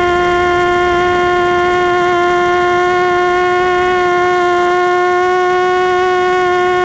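Quadcopter's electric motors and propellers whining at a steady, unchanging pitch in flight, heard through the craft's onboard camera.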